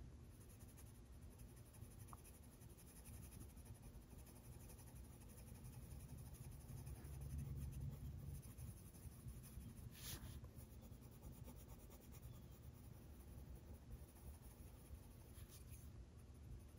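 Faint scratching of a coloured pencil shading on paper, with a slightly louder stroke about ten seconds in.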